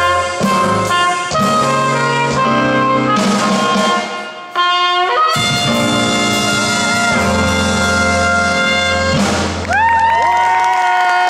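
Live jazz band playing, with trumpet lead over saxophone, bass guitar and drum kit. The music breaks off briefly about four seconds in, then carries on and ends on a long held chord from the horns near the end.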